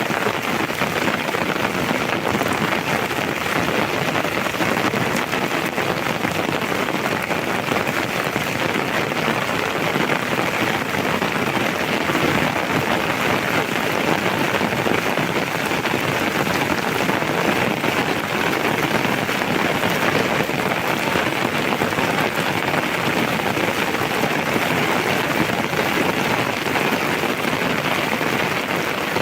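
Heavy rain falling: a steady, dense patter that keeps an even level throughout.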